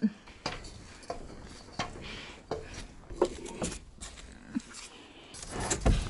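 Wooden whaler board being shifted along the foam concrete forms: light knocks and rubs of lumber about every half second to second, with louder knocks just before the end.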